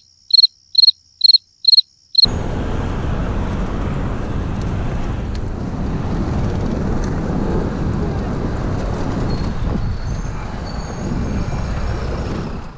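For the first two seconds, six evenly spaced high cricket chirps over otherwise dead silence, the stock 'crickets' sound effect. Then a sudden switch to steady street noise: traffic and rolling and wind noise from riding a bicycle on a cobbled city street.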